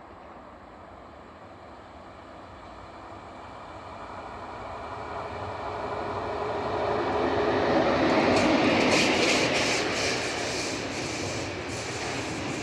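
EU07 electric locomotive hauling a container freight train, approaching and passing: a steady running rumble that grows louder to a peak as the locomotive goes by about eight seconds in, then the container wagons rolling past with a series of sharp wheel clicks over the rail joints.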